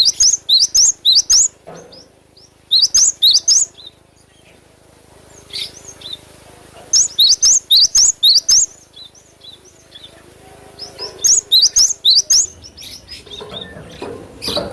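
Cinereous tit (gelatik batu) calling: four loud bursts of quick, sharp, high chirps, each burst about a second long and a few seconds apart, with softer single notes in between.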